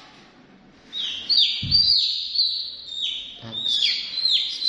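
A chick peeping loudly and repeatedly from about a second in, each peep sliding down in pitch, about two a second. A dull thump sounds under the second peep.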